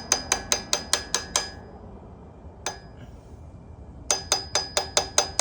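Hammer tapping on a stuck connecting-rod bearing cap of a Mazda Miata engine, quick ringing metal-on-metal taps about five a second. A run of taps, a pause with a single tap, then another run near the end. The cap is being knocked loose because the rod bearing is suspected to have failed and seized in place.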